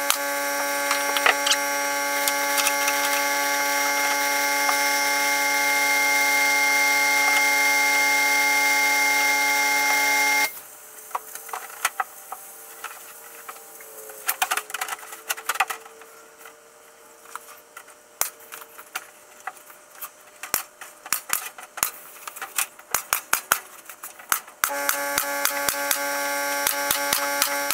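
Background music of steady sustained chords that cuts off abruptly about ten seconds in and comes back near the end. In the gap, a long series of sharp, irregular clicks and knocks, from brads being driven into the enclosure's wooden panels with a nail gun.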